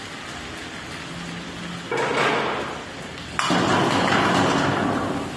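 Food sizzling in a hot wok: a burst of sizzle about two seconds in as ingredients hit the pan, then a louder, sharper sizzle starting suddenly about three and a half seconds in and easing off slowly.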